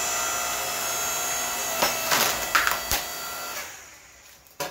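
Electric log splitter's motor and hydraulic pump running with a steady whine. A few sharp cracks come about two to three seconds in as a log splits. The whine then fades away near the end as the motor stops.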